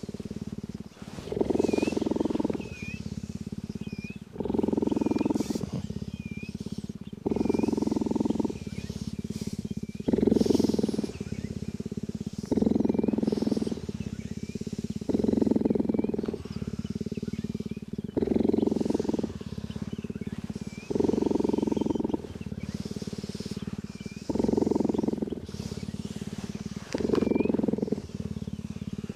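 Cheetah purring in a steady rhythm, louder for about a second on each breath every two and a half to three seconds and softer in between: the animal is content while being groomed.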